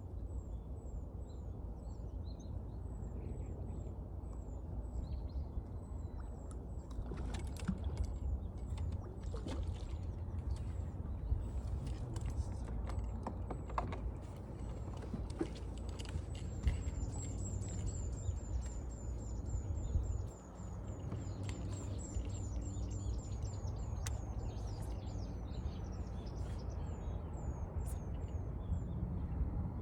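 Outdoor ambience with a steady low rumble and a thin, high chirping call repeated throughout, which speeds into a fast run of chirps around the middle. Scattered sharp clicks come in the first half.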